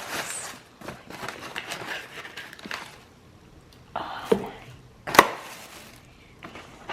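Takeout food containers and their bag being handled: rustling for the first few seconds, then two sharp clicks or knocks, the second the louder.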